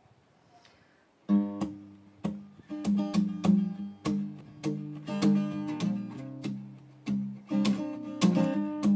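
Acoustic guitar playing an intro of strummed chords that ring on between strokes, starting just over a second in.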